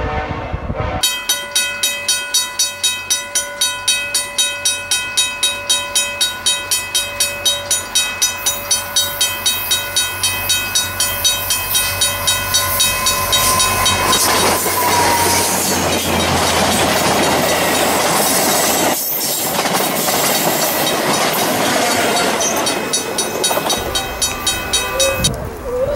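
Level-crossing bell ringing at about three to four strikes a second while a VIA Rail F40PH diesel locomotive and its passenger cars approach and rush past at speed. The train's rushing wheel and engine noise builds about a third of the way in, drowns the bell for most of the pass, and drops away near the end.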